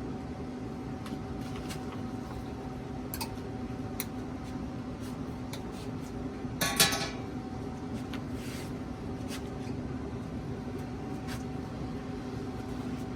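Light metallic clicks and knocks of handling at a vertical pellet smoker, with one louder metal clatter near the middle, over a steady low hum.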